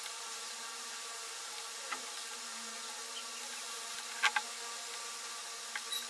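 A steady buzzing background hum, with a few light clicks and taps from a plastic tube and a wooden skewer being handled against a jar lid, the loudest a close pair about four seconds in.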